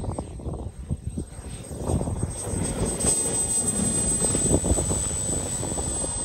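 JetCat model jet turbine of a Carf BOLT RC jet, with a steady high whistle at low power as the model lands. A rough low rumble grows louder about two seconds in as it touches down and rolls out across the grass.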